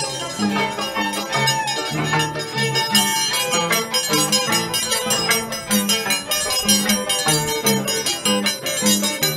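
A Peruvian folk band playing a huayno-style tune, with a bouncing two-note bass line under bright melody instruments in a steady rhythm.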